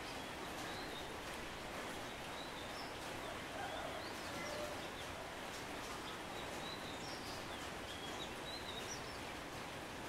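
Steady hiss of light rain falling on tree foliage, with faint, short high chirps of small birds scattered through it.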